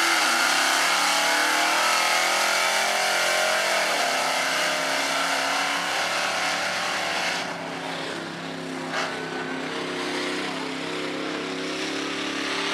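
Mud truck engines running hard as a school bus mud truck and a pickup drag-race down a dirt track. The engine pitch dips about four seconds in and then climbs again. The sound turns duller and a little quieter from about halfway as the trucks pull away, with one short sharp tick near the end.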